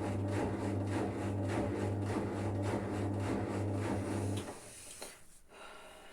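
Hotpoint Indesit washing machine running with a steady hum and a regular ticking about three times a second, then stopping abruptly about four and a half seconds in, followed by a couple of faint clicks.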